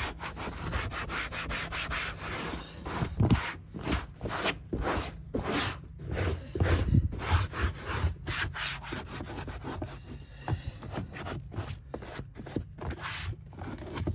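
A microfibre cloth rubbed by hand over a van's carpet and plastic trim: a run of irregular scrubbing swipes with short pauses between them.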